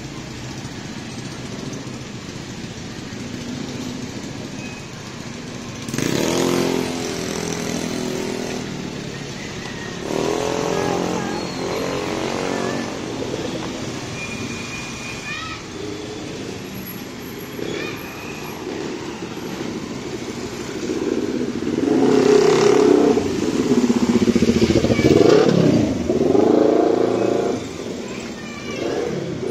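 Street traffic of small motorcycle engines: motorcycles and motorcycle-sidecar tricycles pass one after another, their engine pitch rising and falling as they go by. The loudest passes come near the end.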